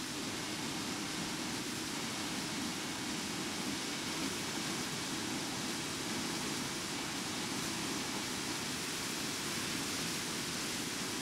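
Steady rush of wind and propeller noise on the onboard camera of a Silver Specter FPV fixed-wing plane in cruise flight, its electric motor holding an even throttle.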